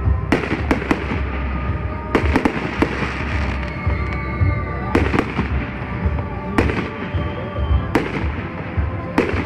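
Fireworks display: aerial shells bursting overhead with sharp bangs every second or two, some coming in quick clusters of two or three.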